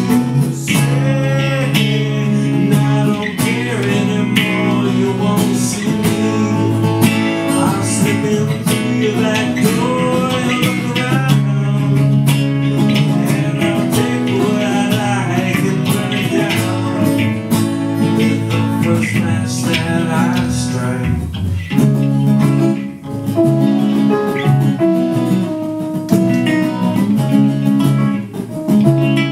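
Live acoustic band music: two acoustic guitars strummed and picked over keyboard chords, with a man singing lead.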